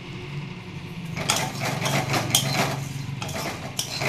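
A wooden spatula stirring and scraping dry fried food around a black kadai, a busy run of scrapes and knocks starting about a second in, over a steady low hum.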